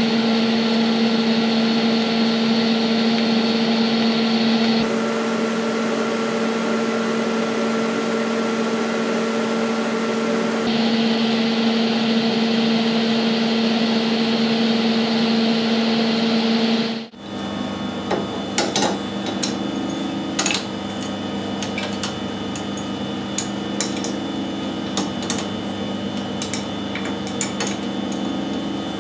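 Electric welding arc running with a steady buzzing hum and hiss; the hiss changes for several seconds in the middle. After about seventeen seconds it cuts off suddenly, and light metallic clinks and taps follow as the lathe chuck and tools are handled.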